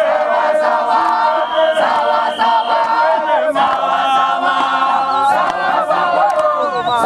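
A crowd of voices singing together in harmony, a chant-like song, with a high steady tone held for about a second starting around a second and a half in.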